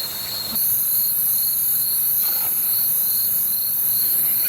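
Night insects, crickets, trilling: a steady pulsing high chirp, joined about half a second in by a louder, continuous very high-pitched buzz.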